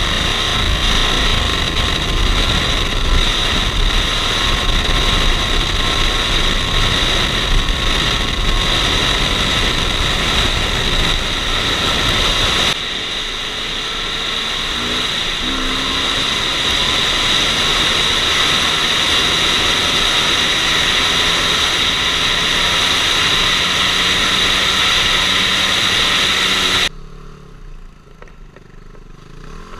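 Motorcycle engine running at a steady cruising speed, with wind rushing over the helmet camera. It eases off and gets quieter about 13 seconds in, then drops away sharply near the end.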